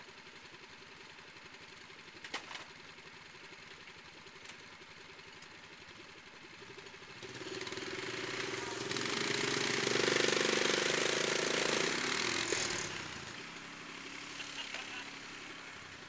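ATV and mini-truck engines idling, then about seven seconds in revving up to a hard, steady pull under load with a loud hiss, as the two vehicles strain against each other on a tow strap in four-wheel drive. Around thirteen seconds the revs drop back to idle.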